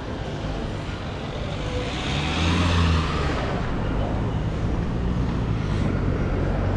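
Street traffic rumbling steadily, with a motor vehicle's engine passing close by and loudest about two and a half seconds in.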